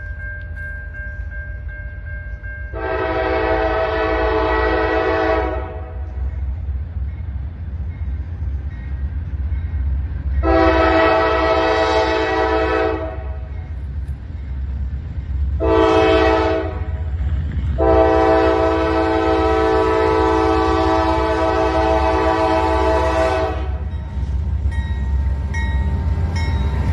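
Freight train's diesel locomotive air horn sounding the grade-crossing signal: two long blasts, a short one and a final long blast, each a chord of several tones. Underneath runs the steady low rumble of the approaching loaded train, led by a Norfolk Southern AC44C6M locomotive that draws level near the end.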